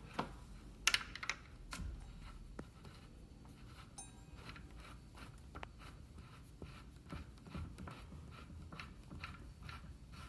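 Scattered light clicks and scratches of small metal screws being fitted and turned in by hand on an electric scooter's wheel mount, with a few louder clicks about a second in.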